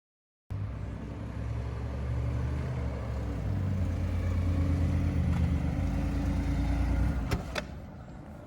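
An engine running with a steady low hum, cutting off about seven seconds in, followed by two sharp clicks.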